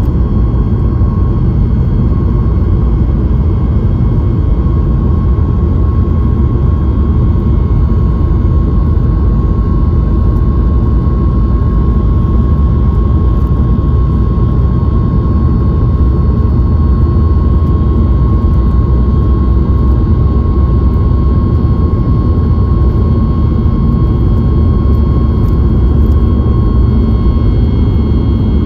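Boeing 737-9 MAX CFM LEAP-1B jet engines running at a steady setting, heard inside the cabin near the wing: a loud, even low rumble with a thin steady whine over it.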